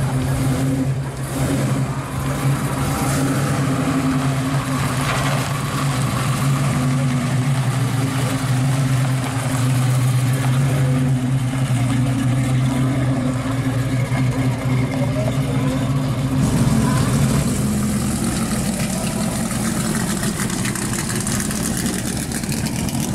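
A custom Chevy II Nova's engine running at a steady idle. About two-thirds of the way through, it gives way to a red Shelby Cobra replica's engine idling.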